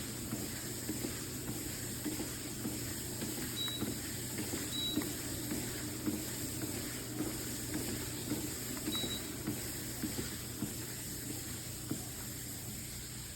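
Elseluck walking pad treadmill running with a steady motor hum and whine, with soft footfalls on the moving belt.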